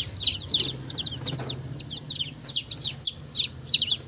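A group of newly hatched chicken chicks peeping: many short, high cheeps that slide downward in pitch, overlapping several times a second.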